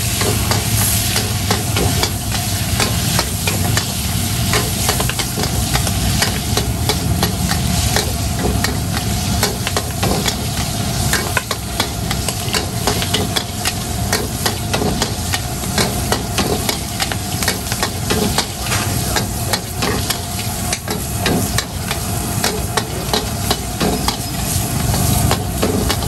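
Metal spatula scraping and clacking rapidly against a steel wok as food is stir-fried and sizzles over a high gas flame, with a steady low rush from the burner underneath.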